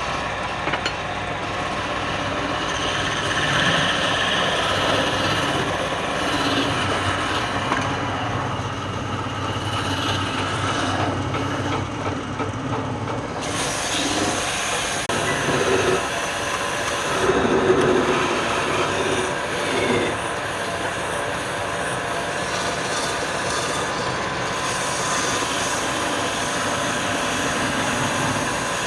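Wood lathe running steadily, with a turning tool cutting the spinning wood.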